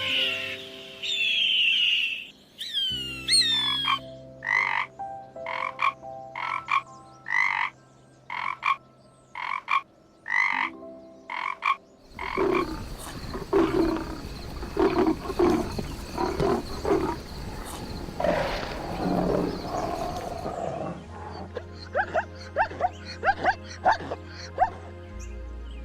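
Animal calls of several different kinds in turn, changing every eight seconds or so, over soft background music with long held notes.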